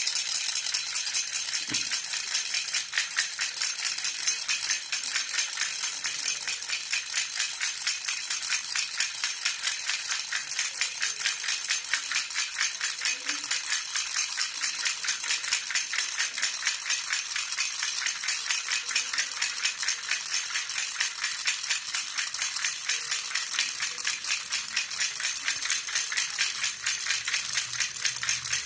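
Baby rattle (jhunjhuna) shaken steadily and rapidly without pause, giving a continuous, even jingling rattle.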